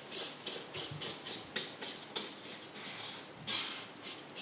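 Paintbrush scrubbing across a surface in short scratchy strokes, about three a second, with one longer, louder stroke near the end.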